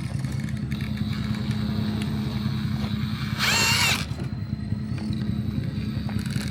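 Radio-controlled rock crawler's electric motor and drivetrain running steadily at low speed as it climbs rocks. A brief, louder high-pitched squeal comes about halfway through.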